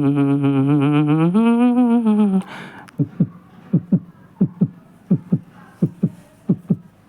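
Background music: a hummed vocal line with a wavering pitch, which stops about two and a half seconds in and gives way to a beat of paired low thumps, like a heartbeat, about three pairs every two seconds.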